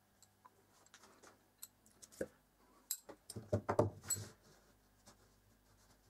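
Small clicks and knocks of a copper-tube fire-piston cylinder and steel piston rod being handled and laid down on a workbench, with a flurry of louder knocks about three to four seconds in.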